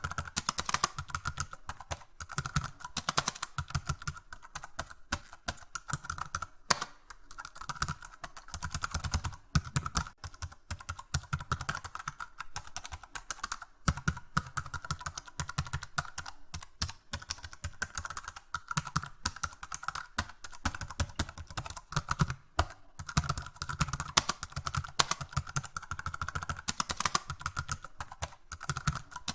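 Rapid, continuous typing on a computer keyboard, a dense stream of key clicks with a few brief pauses.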